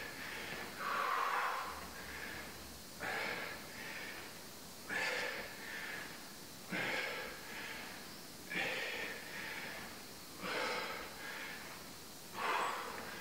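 A man breathing hard during exercise, with a forceful exhale about every two seconds as he does lateral lunges, seven in all.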